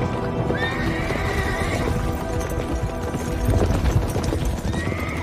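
Several horses galloping on dirt, their hoofbeats heaviest about three and a half seconds in, with a horse whinnying twice, once early and once near the end. Background music plays underneath.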